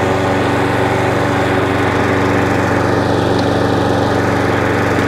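Hayter 41 variable-drive rotary lawn mower's petrol engine running steadily while the mower self-propels across grass.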